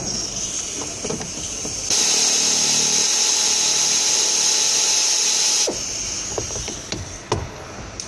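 A power tool runs steadily for about four seconds, starting about two seconds in and cutting off suddenly, with a strong high hiss over a faint hum. It is followed by a few sharp clicks and knocks.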